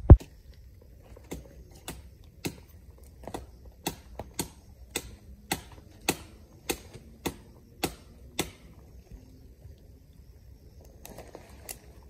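A hand blade hacking at the branches of a small tree: a run of sharp chopping strikes, about two a second, that stops about eight seconds in.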